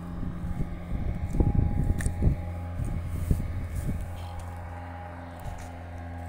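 Steady drone of an engine running, with irregular low rumbles and knocks during the first few seconds and a single sharp click about two seconds in.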